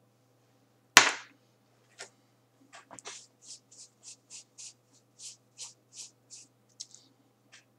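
Makeup being handled and applied. There is a sharp click about a second in, then a run of short scratchy brushing strokes, about three a second.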